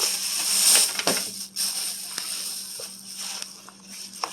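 Groceries being handled, with packaging rustling and a few light clicks and knocks as an egg carton is opened and checked for broken eggs. A steady low hum runs underneath.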